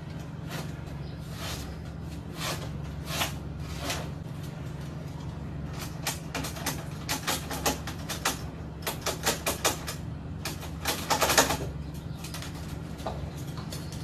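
A run of short clicks and rustles over a steady low hum, thickest in the middle and latter part.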